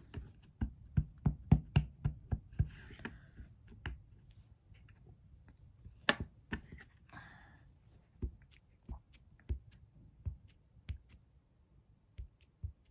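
Stamping supplies handled on a tabletop: an acrylic stamp block with its rubber stamp, a plastic ink pad case and card stock, giving irregular light taps and clicks with a couple of brief paper rustles. There is a quick run of taps in the first two seconds and a sharper knock about six seconds in.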